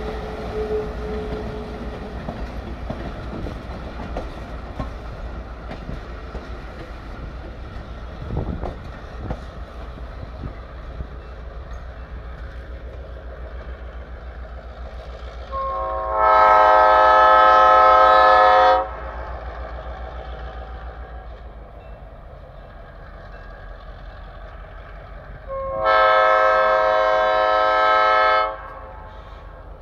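Passenger coaches rolling past on the rails with a steady rumble and a few wheel clacks, fading as the train pulls away. Then the train's horn sounds two long blasts of about three seconds each, several seconds apart. The blasts are a chord of many tones and are much louder than the rolling.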